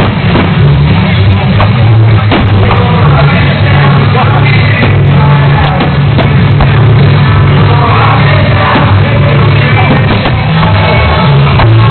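Loud rock music with a singing voice and heavy bass, playing steadily without a break.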